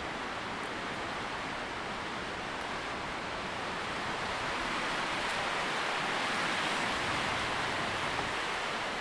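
Tree leaves rustling in a steady wind, an even hiss that swells a little around the middle.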